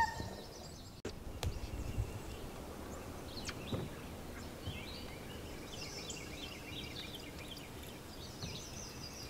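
Quiet open-air background with a songbird singing a run of quick, high chirping notes through the second half, and a few faint clicks earlier on.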